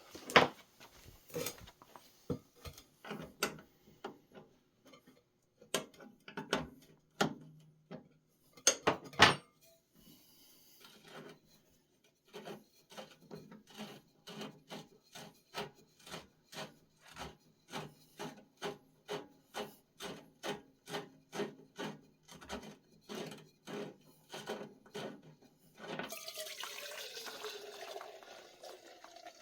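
Clatter and knocks of handling, then a steady run of rubbing or scraping strokes, about one and a half a second, as the parts washer's drain is worked open. Near the end, used solvent starts pouring out of the solvent tank's drain into a tub, a gushing wash with a falling tone.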